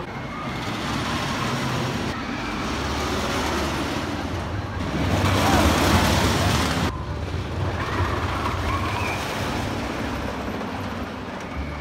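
Thunderhead, a Great Coasters International wooden roller coaster: a train rushing past close by on its wooden track, a loud rattling rumble that swells about five seconds in and dies away after about two seconds.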